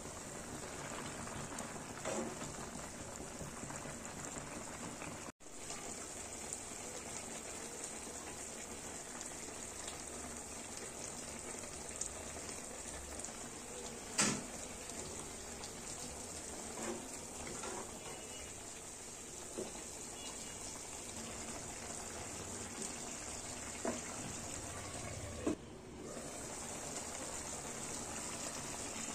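Curry bubbling and simmering in a pan, stirred with a wooden spatula that knocks against the pan a few times, loudest about halfway through.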